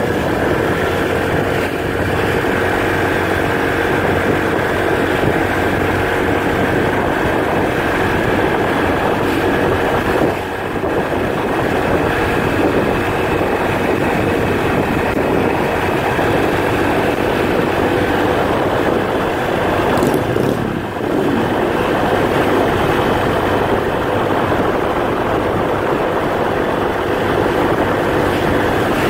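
Motorbike engine running steadily while riding, heard from on board along with road and wind noise. The sound dips briefly twice, about a third and two-thirds of the way through.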